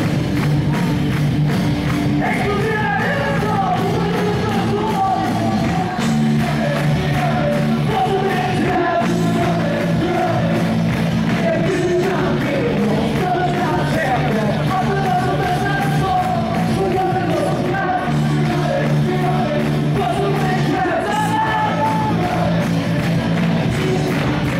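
Live rock band playing through a PA: electric guitars and bass hold chords under a lead singer's melody.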